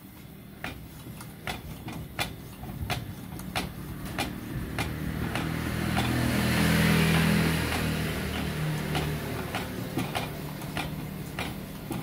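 Hand air pump of a kerosene pressure lantern being worked in steady strokes, a sharp click about every two-thirds of a second, pumping up pressure in the fuel tank. Midway a motor vehicle engine swells up and fades away over several seconds and is the loudest sound.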